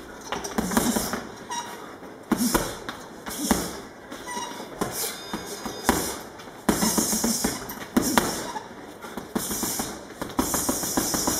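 Gloved punches landing on a hanging heavy punching bag: sharp thuds in irregular flurries of two or three, each flurry with a short hissing burst.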